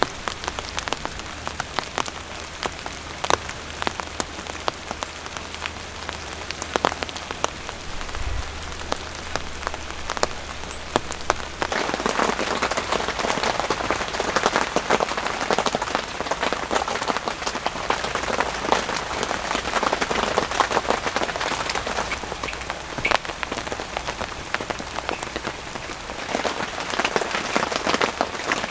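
Steady rain falling, with many individual drops pattering and ticking on surfaces. It grows heavier a little under halfway through.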